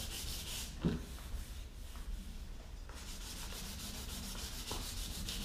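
Hand sanding with 320-grit sandpaper, quick back-and-forth strokes rubbing down rough old touch-up paint on a plastic car bumper cover. The strokes pause briefly around the middle, then carry on.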